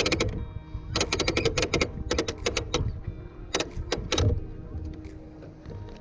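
Background music: quick clicking percussion, about eight beats a second, over held tones, coming in groups and thinning out after about four and a half seconds.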